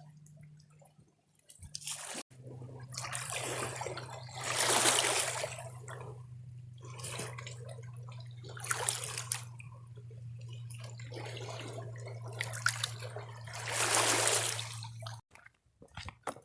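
Water trickling and sloshing, rising and falling in several swells, over a steady low hum.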